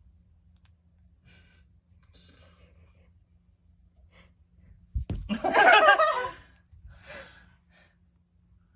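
A light thump about five seconds in, then a person's loud gasping laugh lasting about a second, followed by a short breath.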